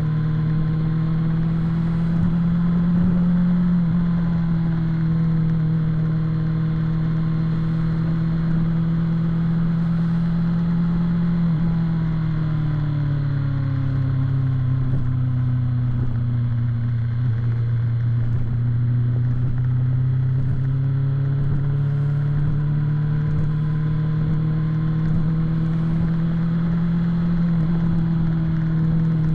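BMW S1000 motorcycle's inline-four engine running at a steady cruise. Its note glides down about twelve seconds in as engine speed falls, holds low for a few seconds, then climbs smoothly back up near the end.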